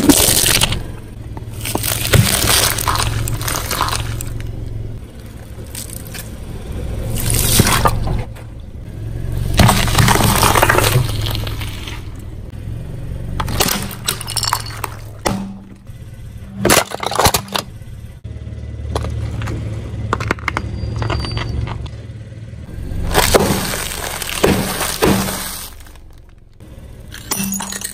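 Things being crushed under a car tyre, giving repeated crunching and cracking about seven times, each lasting about a second. A steady low hum runs underneath.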